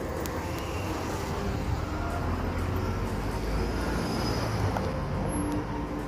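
Street traffic: a motor vehicle's low engine rumble that swells in the middle and eases near the end.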